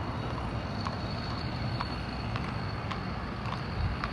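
Horse's hooves clip-clopping on pavement at a walk, about two hoofbeats a second, over a steady low rumble of road traffic and wind on the microphone.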